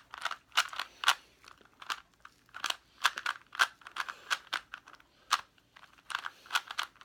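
A Rubik's brand cube being turned by hand in quick runs of moves, its plastic layers clicking and clacking in irregular clusters with short pauses between them, during the last moves of a solve.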